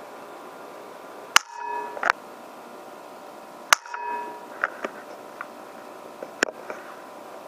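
Two shots from a PCP air rifle, about two seconds apart, each a sharp crack followed by a brief ringing tone; a second sharp knock comes about half a second after the first shot. Scattered light ticks follow over a steady faint hiss.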